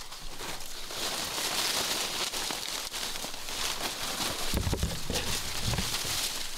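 Dry corn stalks and leaves rustling and crackling as people push through a standing cornfield on foot, with footsteps. A cluster of low thumps comes about two-thirds of the way through.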